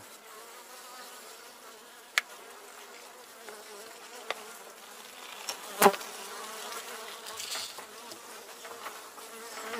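Honeybees buzzing steadily in an open hive, with sharp clicks at about two and four seconds in and a louder knock about six seconds in as the hive is worked.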